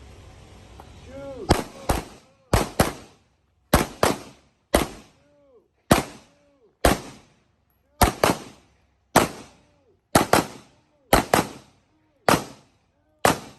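Handgun shots in a steady string of about eighteen, roughly one a second, several fired as quick pairs (double taps).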